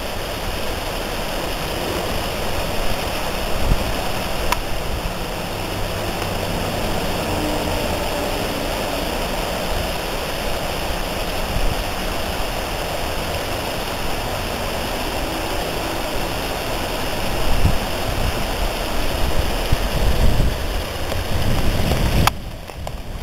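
Steady rushing of flowing water, like a nearby stream, with irregular low rumbles of handling or wind on the microphone. The rushing drops away abruptly near the end.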